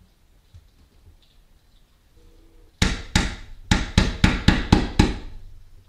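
Picture-hanging level tool being tapped against the wall to press its marking pins in, about eight sharp knocks in quick succession starting about halfway through.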